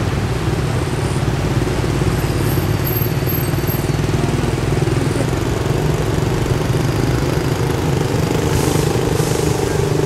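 Motorbike engine running steadily at cruising speed, heard from the bike as it rides, with a constant rush of wind and road noise.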